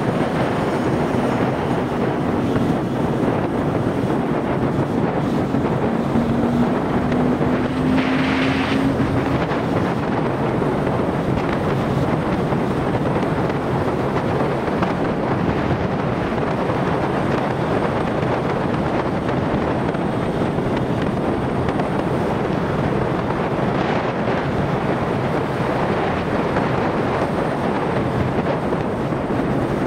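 Motorcycle engine running at road speed under heavy wind noise on the microphone, its note rising slowly over the first several seconds. A brief hiss about eight seconds in.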